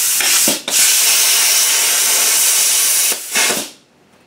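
Plasma cutter hissing loudly as its torch cuts a rounded corner in steel sheet. The arc breaks off briefly about half a second in, then runs on and stops shortly before the end.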